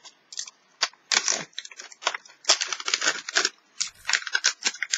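Thin plastic crinkling and tearing in quick, irregular bursts as the compartment of a Mini Brands capsule ball is picked and peeled open by hand.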